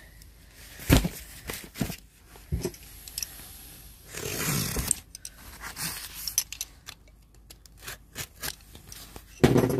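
Cardboard boxes being handled: scattered knocks and taps, the loudest about a second in, and a scraping, rustling stretch about four seconds in as a box slides against the others.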